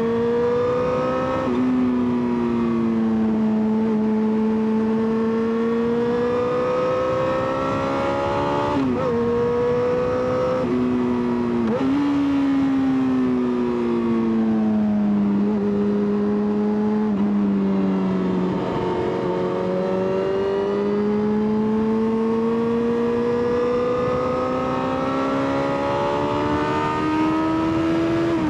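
Yamaha XJ6's 600 cc inline-four engine pulling hard, its pitch climbing under acceleration and dropping sharply at quick gear changes about two, nine and twelve seconds in. In the middle the revs fall away steadily for several seconds as the bike slows, then climb again toward the end, with wind noise beneath.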